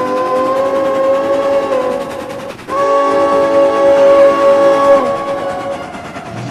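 Train sound effect: a chord-toned train whistle blows two long blasts, the second starting just under three seconds in and cutting off about five seconds in, over steady rhythmic rail clatter that carries on after it.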